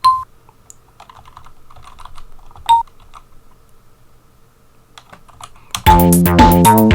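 Computer keyboard typing as notes are entered into a tracker, with two short loud pitched blips, one at the start and one nearly three seconds in. About six seconds in, tracker music built from Amiga soundtracker samples starts playing loudly, with a beat and a melody.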